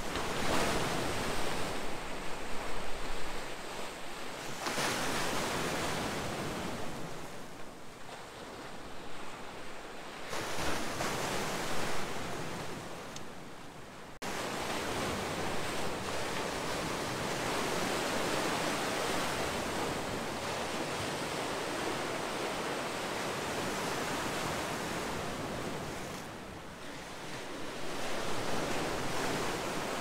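Sea waves breaking and washing in among large shoreline boulders: the surf swells and falls back every few seconds, then rushes more steadily from about halfway through.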